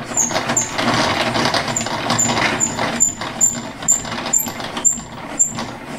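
Table saw's blade-height crank being turned, the elevation gearing grinding steadily with a short high squeak about twice a second.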